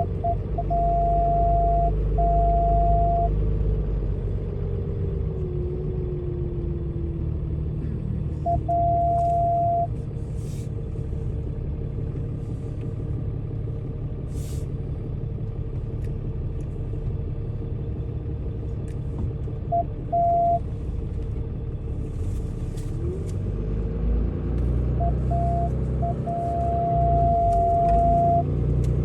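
Truck engine running at low speed while towing a fifth-wheel RV, heard from inside the cab. A loud steady warning tone comes and goes: short beeps and stretches of about a second, then one long unbroken tone near the end.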